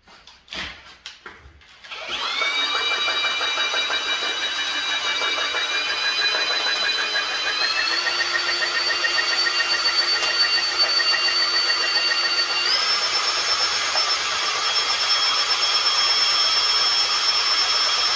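Cordless drill driving a Malco TurboShear attachment through sheet metal: a few knocks at the start, then about two seconds in a steady high motor whine that steps up in pitch twice as the cut goes on.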